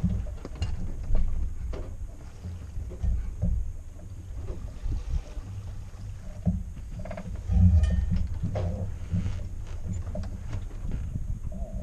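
Wind buffeting the microphone and water rushing along the hull of a sailboat running downwind in a swell, an uneven low rumble that swells about two thirds of the way through, with a few light knocks.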